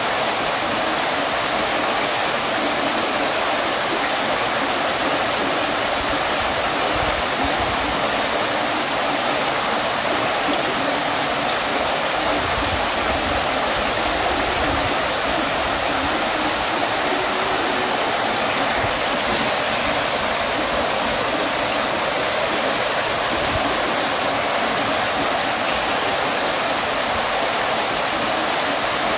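Fountain water falling and splashing, a steady, even rush of water.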